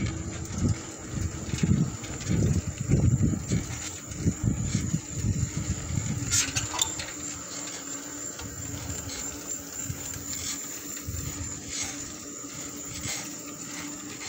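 Wind buffeting the microphone with tyre rumble as a bicycle rolls along an asphalt street, in gusts that are strongest in the first half and settle after about seven seconds, with a few light rattling clicks.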